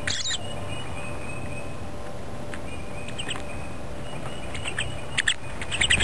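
Pine siskin pecking and cracking seeds in a plastic feeder tray right beside the microphone: scattered sharp ticks and crunches, with a quick cluster of them near the end.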